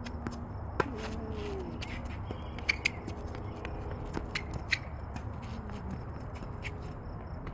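Tennis rally on an outdoor hard court: scattered sharp pops of racket strikes and ball bounces, the loudest about a second in and near the middle, with running footsteps and a couple of brief squeaks over a steady low background rumble.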